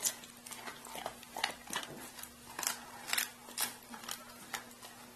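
A dog crunching frozen raw chicken portions, bones and ice cracking between its back teeth in irregular sharp crunches, over a faint steady hum.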